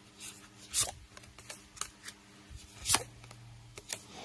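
Tarot cards being handled and laid out: light flicks and rustles of card stock, with two sharper card slaps, one about a second in and one near three seconds.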